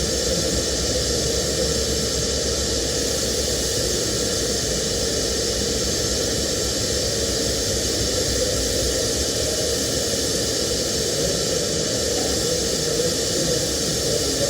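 Steady, unbroken hiss of a TIG welding arc, with a faint hum under it.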